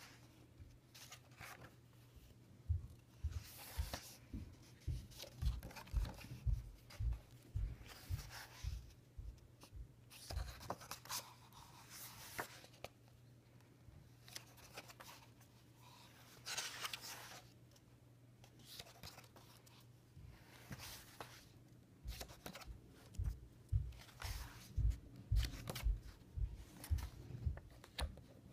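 Paper pages of a large-format book being turned and smoothed by hand: repeated rustles and swishes of paper sliding. Two clusters of low soft thumps from handling the book are the loudest sounds, one a few seconds in and one near the end.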